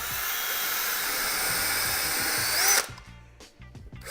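Power drill boring into a wooden wall through a mounting guide, running steadily, then stopping suddenly about three seconds in and starting again near the end.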